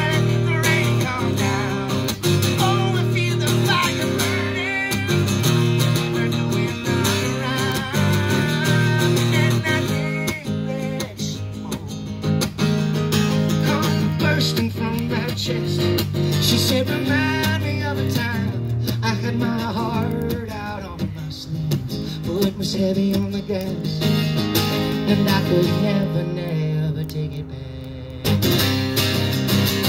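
Acoustic guitar played live, strummed and picked, with a man singing at times. It gets quieter for a stretch past the middle and picks up again near the end.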